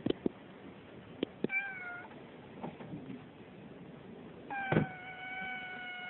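A cat meowing: a short meow about one and a half seconds in, then a long, drawn-out meow held on one pitch from about four and a half seconds in. A few sharp knocks come in between, the loudest just as the long meow begins.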